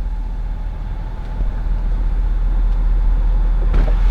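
A motor vehicle driving: a steady, loud low rumble of engine and road noise.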